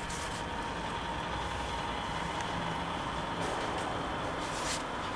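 Rotisserie spit turning on a charcoal kettle grill: a steady hiss with a faint motor hum, and a few faint clicks near the end.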